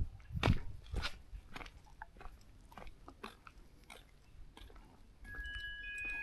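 Irregular crunching clicks, with two heavier thuds in the first second and a few brief high steady tones at different pitches near the end.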